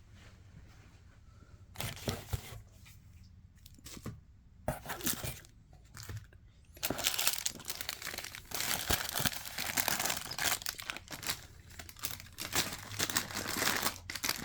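Packaging of an advent calendar gift being torn open and crinkled by hand: scattered small rustles and clicks at first, then steady, continuous tearing and crinkling from about halfway through.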